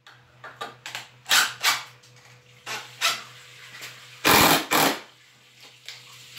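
A series of short, uneven knocks and clatters, the loudest two coming close together about four and a half seconds in, over a steady low hum.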